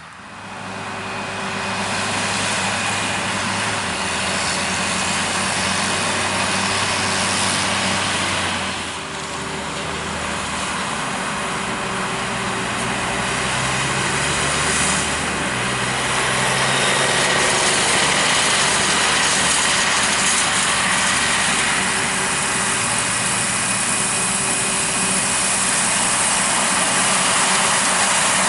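Large diesel farm machinery running steadily: a low engine hum whose pitch shifts a few times, under a wide rushing noise.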